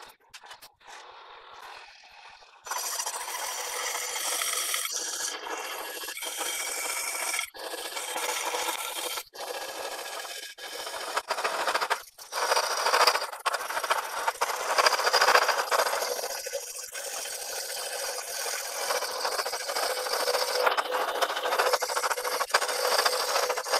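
An eighth-inch slitting saw on a Bridgeport milling machine cuts a slot through a steel flywheel hub, making a steady grinding scrape. It starts about two and a half seconds in, after a few light clicks, and is broken by several brief gaps.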